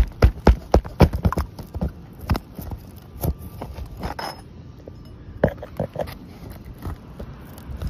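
Sharp clicks and knocks of a small hand pry tool being worked under an asphalt shingle tab to get at and pull the nails, several a second at first, then sparser, with a short scrape about four seconds in.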